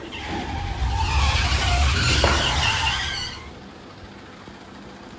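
A vehicle-type rumble with a wavering squeal over it, loud for about three seconds and then dropping away sharply to a low background hum.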